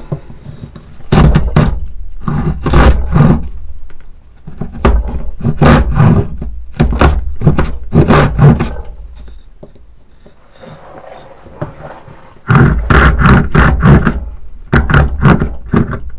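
Hand sawing with the small saw blade of a multitool, in quick back-and-forth strokes, about two or three a second. The strokes come in three spells with short pauses between, the last starting a little past halfway.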